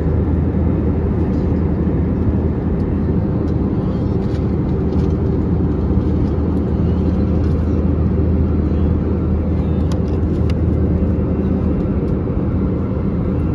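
Steady cabin noise inside an Airbus A321-200 airliner: a constant low engine drone and airflow rush with a deep hum, unchanging throughout.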